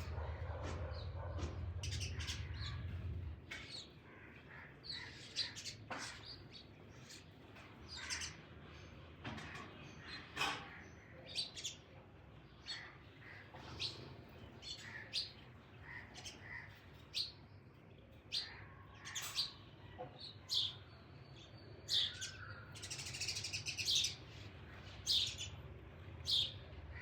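Birds chirping in short, irregular calls, with a busier run of chirps near the end. A low hum underneath stops about three seconds in.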